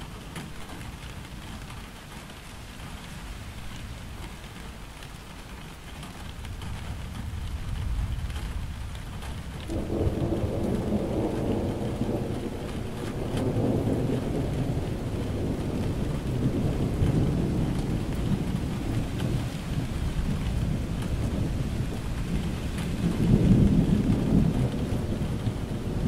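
Steady rain falling, with rolling thunder that comes in about ten seconds in, rumbles on, and swells again near the end.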